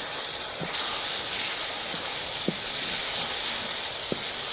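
Peas and tomato-spice masala sizzling as they fry in hot oil in an aluminium kadai, stirred with a wooden spoon. The sizzle steps up just under a second in and then holds steady, with a few faint knocks.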